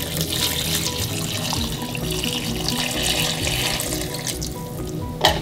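Hot water pouring from a kettle into a pot of meat, onions and bay leaves: a steady splashing stream that thins out near the end. Background music plays underneath.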